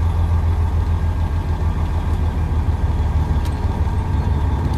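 Semi truck's diesel engine running with a steady low drone, heard from inside the cab while the truck is being driven.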